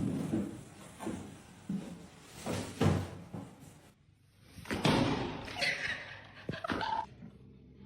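A series of knocks and thumps, like something slamming or banging against a door, with a short quiet gap about four seconds in.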